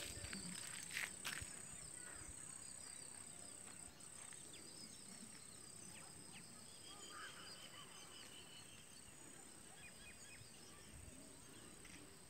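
Faint rural outdoor ambience: small bird chirps scattered throughout over a steady high-pitched whine, with a couple of clicks about a second in.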